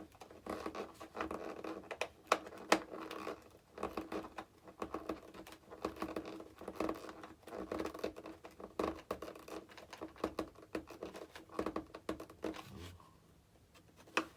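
Hand screwdriver turning a screw into a foam RC jet's plastic tail mount: irregular scratching and small clicks of the driver and the parts being handled, dying away about a second before the end.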